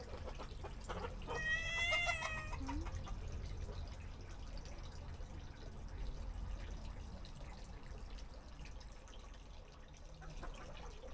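A cat meows once, a drawn-out call that rises and then falls, starting about a second in, over a faint steady trickle of water.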